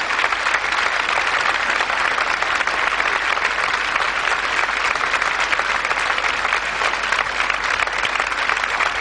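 Large audience applauding steadily, a dense, even wash of clapping from thousands of hands.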